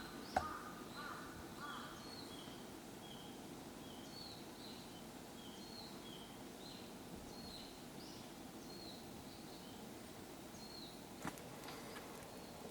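Repeated short high chirps from a small animal, about two a second, alternating between two pitches, over a faint steady rumble. A sharp click comes about half a second in, and another near eleven seconds.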